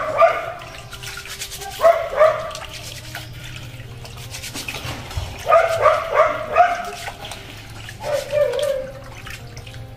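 A dog barking in short groups of two to four barks, four times over, over the quieter swish of hands washing rice in a wok of water.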